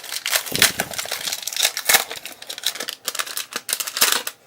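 Wrapper of a basketball trading-card pack crinkling and rustling in the hands, with small clicks and crackles throughout.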